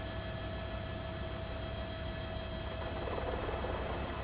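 Steady helicopter engine and rotor noise: a low pulsing rumble under hiss and a constant hum, with a brief swell of rushing noise about three seconds in.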